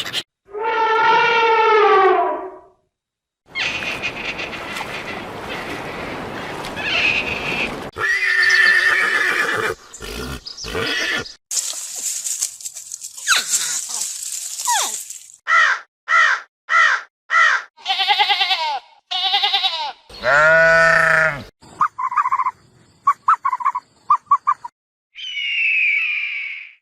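A string of different animal calls played one after another with short silent gaps between them: long pitched calls, a noisy stretch, groups of short repeated calls and quick chirps.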